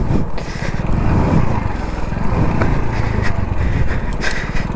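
Hero Splendor motorcycle's small single-cylinder four-stroke engine running under load on rough, rocky ground, with the bike knocking and rattling over stones a few times.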